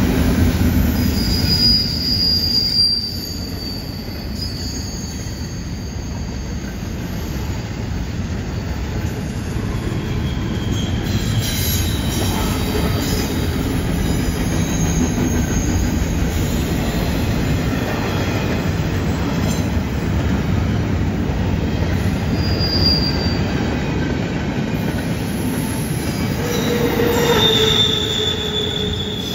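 Double-stack container well cars of a freight train rolling past on a curve: a steady rumble of steel wheels on rail, with high-pitched wheel squeals from the curve, briefly near the start, again past the middle, and a longer squeal near the end.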